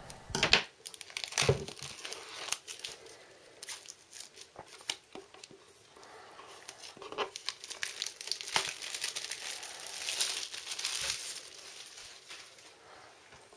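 Plastic shrink-wrap crinkling and tearing as it is peeled off a cardboard box set by hand, in irregular crackles with a few sharp clicks near the start and a busier stretch of crackling later on.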